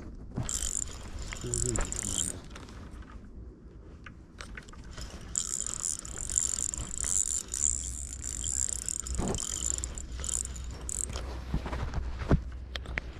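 Fishing reel being cranked to reel in a hooked carp: a steady whirring of the reel's gears in two stretches, a short one at the start and a longer one from about five seconds in, with scattered clicks between.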